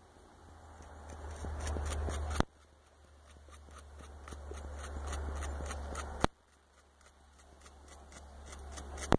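Young North American beaver gnawing bark off a branch: rapid small scraping, crunching clicks from its teeth on the wood, in runs that grow louder and then stop abruptly, three times.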